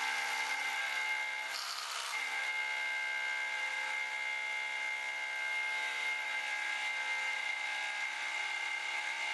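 Rotary hammer in hammer-rotate mode drilling a 3/8-inch hole into a concrete ceiling with a carbide Halt Bit, running steadily.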